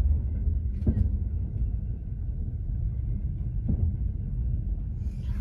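Steady low rumble of a moving passenger train heard from inside a sleeper compartment, with two faint knocks, about a second in and again a few seconds later.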